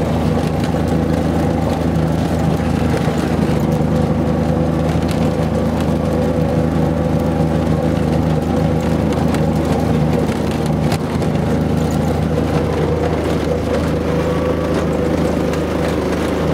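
An off-road vehicle's engine running steadily as it pulls up a dirt hill track, heard on board, with scattered light clicks and rattles.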